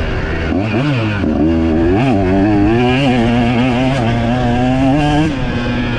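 KTM 125 two-stroke dirt bike engine revving under the rider's throttle: two quick rises and falls in pitch in the first two seconds, then held at high revs for about three seconds before the throttle is backed off near the end.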